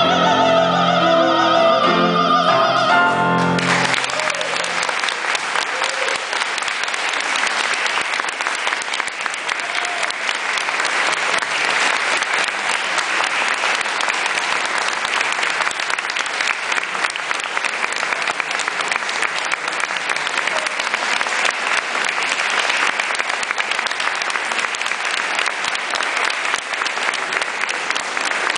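A female opera singer holds the last note of an aria over grand piano chords, ending about three and a half seconds in. Audience applause follows, steady to the end.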